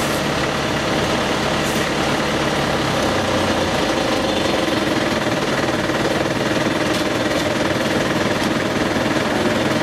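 A large fire-truck diesel engine running steadily at high revs, as when it drives its water pump, with a rapid rattle in it.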